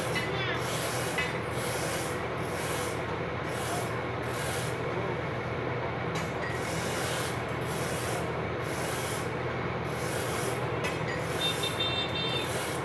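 A hand tool scraped back and forth on a CRT TV circuit board in repeated strokes, about one and a half a second, over a steady low hum.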